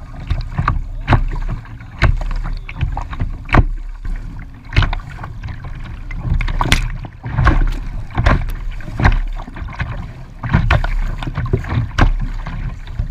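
Choppy water splashing and slapping against the bow of a plastic sit-on-top kayak as it is paddled, the paddle blades dipping in on each stroke. Irregular sharp splashes come about once a second over a steady low rumble.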